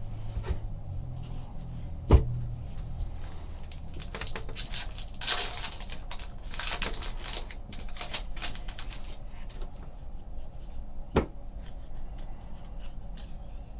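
Trading card packs and cards being handled on a table: wrapper and card rustling and sliding, heaviest in a run of swishes around the middle, with a sharp knock about two seconds in and another near the end.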